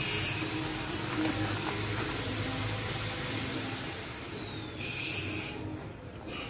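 A motor-driven machine running with a steady whirr and a high whine. About three and a half seconds in the whine slides down in pitch and the noise dies away near the end, as the machine winds down.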